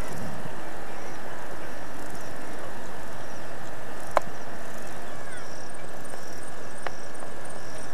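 Rural outdoor ambience: a steady dense hiss with short high chirps repeating about every half second in the second half, and one sharp click about four seconds in.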